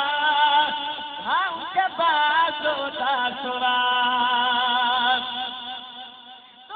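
A man's voice singing a melodic recitation into a microphone, with ornamented turns in pitch and then one long held note that fades away near the end.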